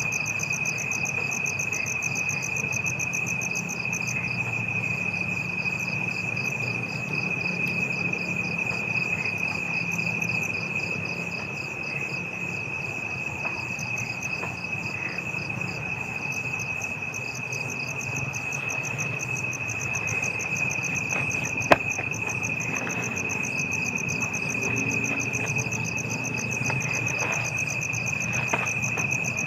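Chorus of crickets and other night insects: one steady high-pitched trill held throughout, with faster pulsing chirps above it. A single sharp click about 22 seconds in.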